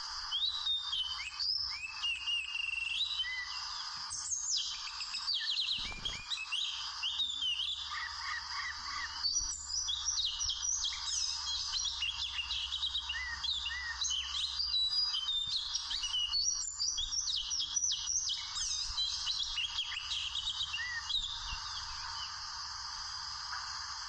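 Oriental magpie-robin singing: a long, varied run of quick whistled notes and slurred glides that stops near the end, over a steady background hiss.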